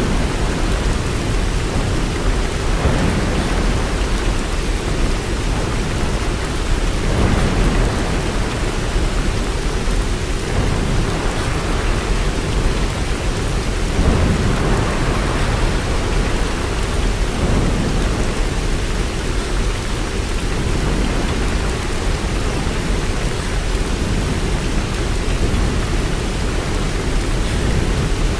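Steady rain falling, with a low rumble underneath that swells and fades every few seconds.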